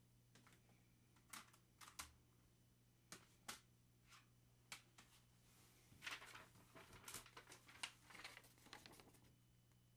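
Faint handling noises: scattered light clicks and taps, then from about six seconds in a denser run of rustling and clicks as a sheet of paper is picked up and moved, stopping about a second before the end.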